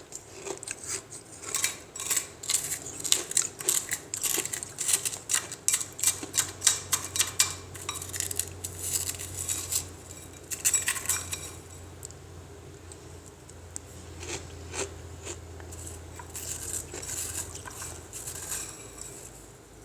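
Frozen ice being handled: rapid, sharp clinks and cracks, dense in the first half, then in shorter clusters. A faint low hum sits under the middle part.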